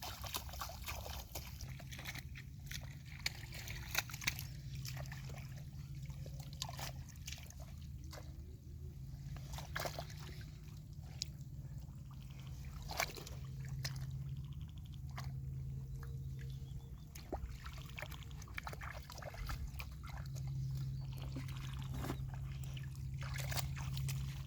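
Shallow muddy water sloshing and splashing as hands grope through it while hand-fishing for catfish, with scattered sharp splashes and a low hum coming and going underneath.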